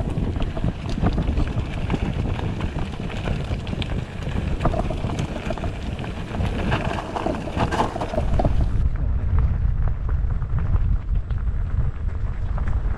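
Wind buffeting the microphone of a mountain bike's action camera during a fast downhill ride, over a steady low rumble from the tyres on a rough dirt and gravel trail, with many small clicks and rattles from stones and the bike. The sound turns duller about nine seconds in.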